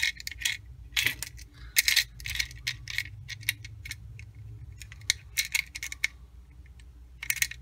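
Small plastic Lego pieces clicking and clattering as skis and poles are handled and fitted into a Lego roof section: scattered light clacks, some in quick clusters.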